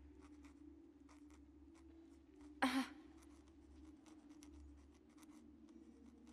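Pen nib scratching on the paper of a ledger in short strokes, over a steady low hum. One loud, brief thump about two and a half seconds in.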